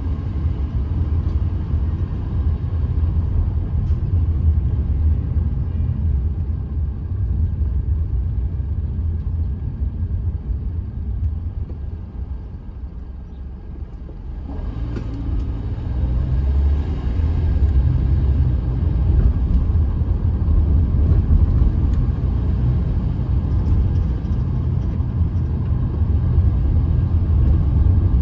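Car driving on city streets, heard from inside the cabin as a steady low engine and road rumble. The rumble eases about twelve seconds in as the car slows, then builds again as it pulls away.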